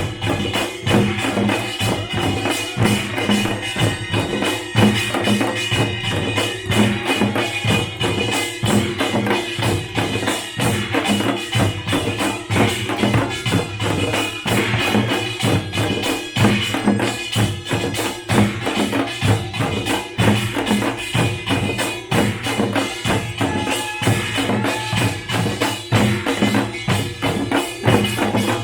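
Korean pungmul (nongak) band playing live: drums beat a fast, steady rhythm under the clanging ring of small hand gongs.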